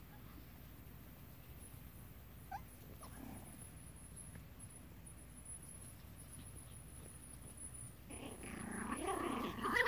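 Seven-week-old Pomeranian puppies play-wrestling: one short squeak about two and a half seconds in, then from about eight seconds in a run of wavering, high-pitched puppy growls that grow louder toward the end.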